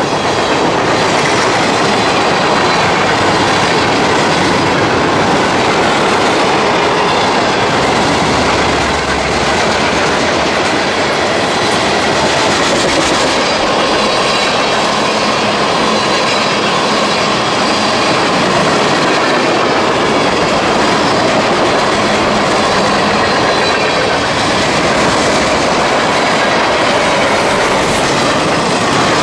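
Freight train cars (covered hoppers and boxcars) rolling past close by, their steel wheels clattering steadily over the rail joints, with a faint high wheel squeal at times.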